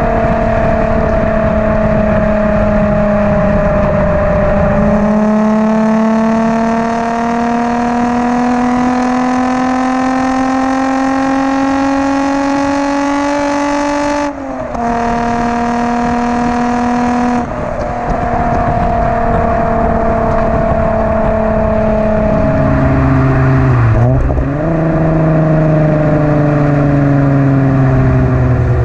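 Volkswagen Corrado VR6 exhaust note heard right at the tailpipe while driving. The engine's pitch slowly falls, then climbs steadily, with brief breaks about halfway through, then falls away again toward the end.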